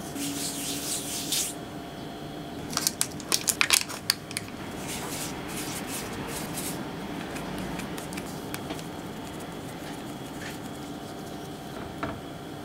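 Floured hands rubbing together and handling manju dough. There is a soft dry swishing, a quick run of sharp pats about three seconds in, and more rubbing a little later.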